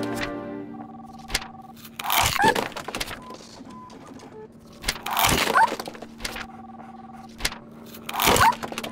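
Cartoon sound effects of a crocodile's jaws snapping shut on paper like a hole punch: three loud half-second snaps about three seconds apart. A faint steady two-note tone sounds briefly between the snaps.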